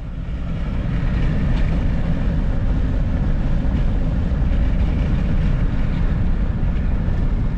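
Road and wind noise of a van cruising at highway speed: a steady low rumble that swells over the first second and then holds level.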